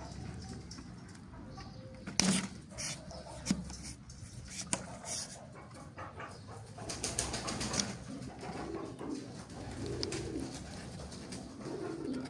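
A thin metal awl clicking and scraping against a plastic bottle cap as a hole is pierced through it, with a few sharp clicks about two seconds in and a cluster of clicks past the middle. Low bird cooing repeats in the background in the second half.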